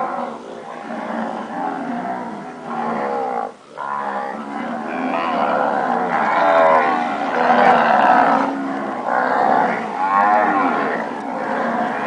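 A herd of Nelore cows with young calves mooing, many calls overlapping, growing louder and denser in the second half.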